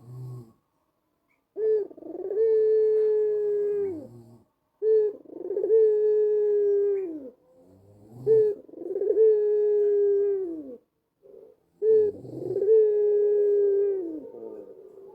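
White Barbary dove (ringneck dove) with a black collar cooing: four long, steady coos a few seconds apart, each opening with a short low note and dropping in pitch at the end.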